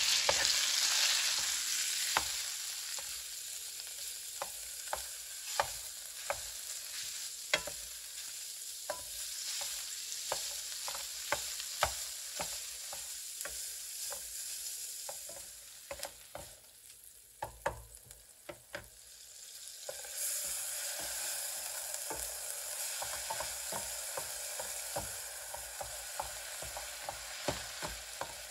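Food sizzling as it fries in a pan, with frequent sharp clicks and taps of a utensil stirring and turning it. The sizzle dies down for a few seconds past the middle, then comes back louder.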